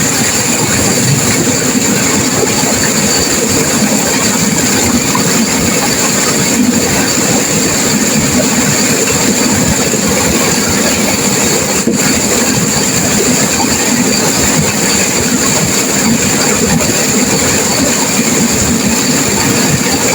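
Turbulent river water crashing and rushing, a loud steady wash of sound with no breaks.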